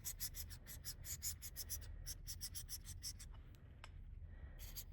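Steel ice auger blade being rubbed flat against an abrasive in quick back-and-forth honing strokes, a rhythmic scraping of about five or six strokes a second. The strokes stop for about a second near the end, then start again.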